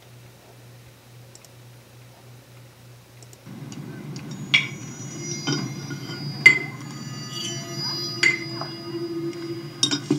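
Spoon clinking against a ceramic bowl several times, each clink leaving a short ringing tone, with a faint rustle behind it, heard through a monitor's speakers. The first few seconds hold only a steady low hum before the clinks begin.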